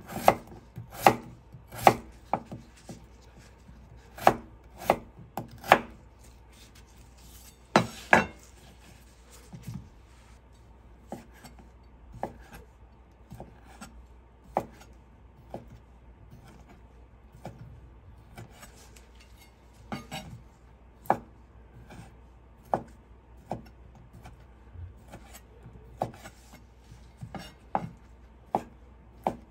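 A chef's knife slicing raw potato and then sausages, each cut ending in a knock on a wooden cutting board. The cuts come in quick runs in the first eight seconds or so, then settle to about one a second.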